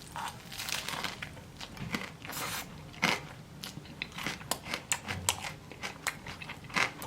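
Close-up biting and chewing of crispy Korean fried chicken: the crust crunches and crackles in many short bursts, sharper and more frequent in the second half.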